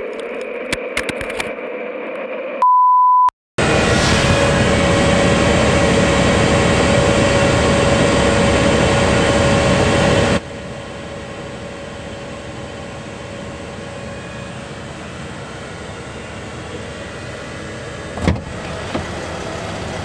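A single steady high beep, lasting under a second, about three seconds in. Then the van's engine runs at idle as a steady rumble, loud with a steady hum over it for several seconds, then quieter from about halfway. A brief thump comes near the end.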